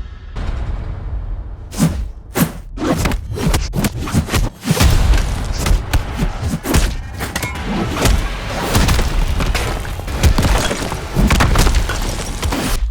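Added fight sound effects: a rapid run of heavy thuds and booming hits, with crashing and shattering impacts, over dramatic music.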